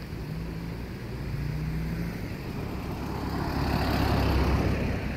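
Silver minivan driving past close by, its engine and tyre noise swelling to a peak about four seconds in, then easing off.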